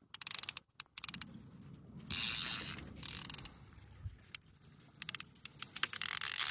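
Fishing reel clicking rapidly while a big hooked sturgeon is fought on the line, with a steady high whine joining about a second in.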